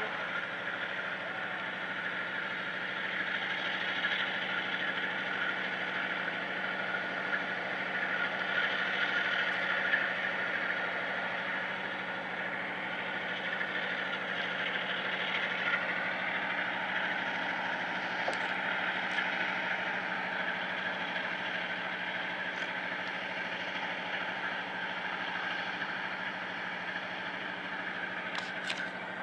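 Norfolk Southern diesel locomotive's engine still running while fire jets from its exhaust stack, fed by a blown turbocharger: a steady roar with a low hum underneath.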